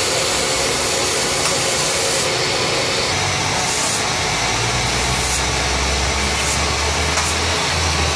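A motor running steadily under a loud, even hiss, with a low drone coming in about halfway through and dropping out near the end.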